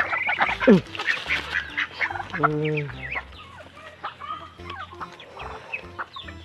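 Domestic ducks quacking and honking as they crowd in to feed. In the first second or so there is a rush of rice being tipped out of a plastic basin onto the ground, then many short quacks and pecking clicks.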